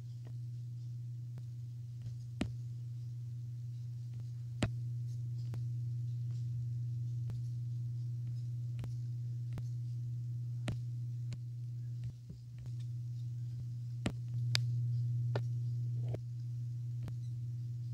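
A steady low hum with short sharp clicks every second or so, a few of them louder. The hum grows briefly louder near the end.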